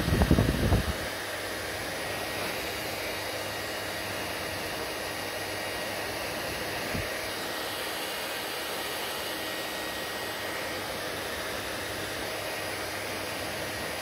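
Handheld hair dryer running steadily, blowing air with a faint whine. A few low thumps in the first second, and one more about halfway through.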